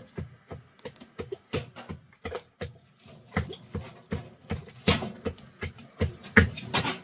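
A rapid, irregular series of short knocks or taps, several a second, with a few louder ones about five and six seconds in.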